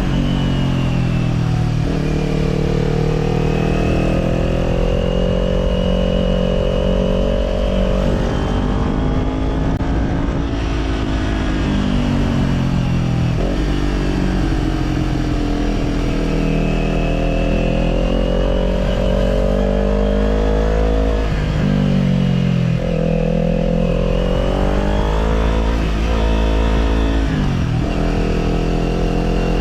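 Kawasaki Z400's parallel-twin engine running through an Orion Katya slip-on exhaust while riding. The engine pitch climbs and falls again and again, dropping sharply about a dozen seconds in, near two-thirds of the way and again near the end, as the rider rolls the throttle and changes gear.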